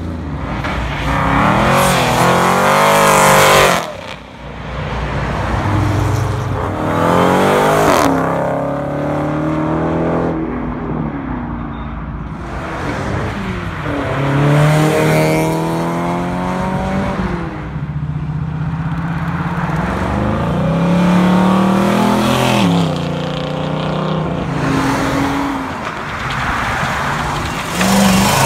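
A run of cars accelerating hard past one after another, their engines revving up through the gears, the pitch climbing and dropping back at each shift. A Lotus Elise goes by about halfway through, and a first-generation Ford Mustang fastback passes close near the end.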